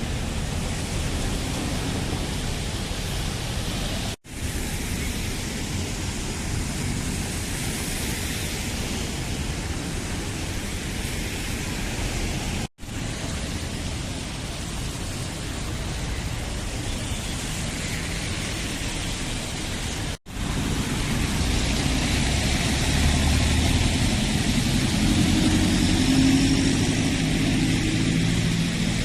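Steady outdoor road-traffic noise, broken by three brief drop-outs. In the last part it is louder, with a vehicle engine running close by.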